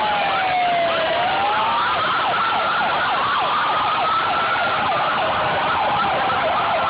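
Emergency-vehicle sirens, more than one at once: a slow falling-then-rising wail that gives way, about a second and a half in, to a fast up-and-down yelp.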